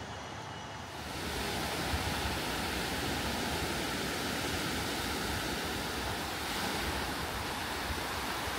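Steady rushing of sea waves with wind buffeting the microphone, starting suddenly about a second in after a quieter hum.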